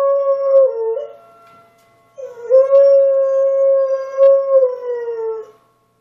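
Dog howling, set off by tornado sirens: one long, steady howl that trails off about a second in, then a second howl from about two seconds in that drops in pitch as it ends.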